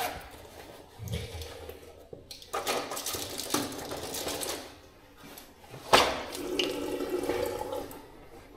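Water running from a tap into a washbasin in two runs, with a sharp knock about six seconds in.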